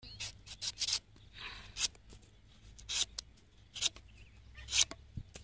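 Curved sickle blade slicing and shaving the fibrous top off a tender palmyra (toddy palm) fruit: an irregular series of short, crisp cutting strokes, the loudest near the end.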